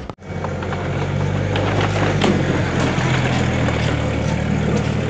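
Mini truck's engine idling steadily at close range, a constant low hum, with scattered light clicks and rustles over it.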